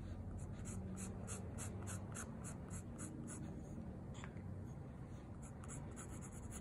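An ink-drawing tool scratching on paper in a quick run of short hatching strokes, about three a second for roughly three seconds, then a few scattered strokes near the end.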